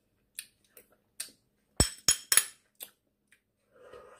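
A metal spoon and a white glass soup bowl clinking as the bowl is handled: about seven sharp clicks and knocks over the first three seconds, the loudest about two seconds in.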